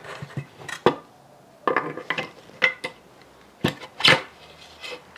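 Metal parts knocking and clinking as a Makita trimmer's aluminium body is handled and fitted into the clamp of an aluminium router lift: a quick series of separate clicks and clanks, some ringing briefly.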